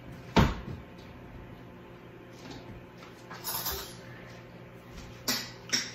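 A sharp, loud knock about half a second in, a brief scraping rustle in the middle, and two quicker knocks near the end.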